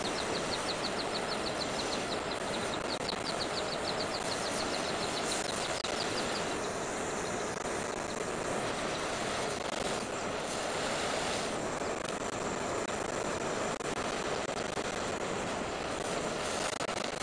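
Steady hiss of a gas torch heating a small copper strip, with a fast run of high chirps over it for the first six seconds or so.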